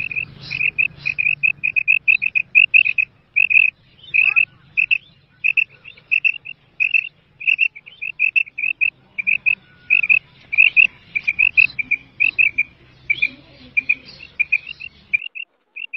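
Female common quail (batair) calling: short, high, clipped notes, often in quick pairs and threes, repeated again and again. A low steady hum runs underneath and stops about a second before the end.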